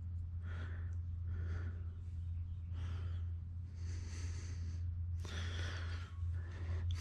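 A person breathing heavily close to a head-mounted microphone, with soft puffs about once a second, over a steady low hum.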